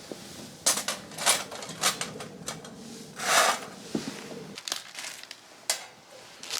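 Sharp metal clinks and knocks from a steel flat fire pit's parts being handled, with a short rustle near the middle.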